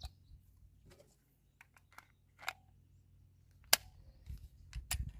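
Scattered small metallic clicks of .40 S&W cartridges being loaded and a Glock 27 pistol being handled, with one sharp louder click about three and a half seconds in and a quick run of clicks near the end.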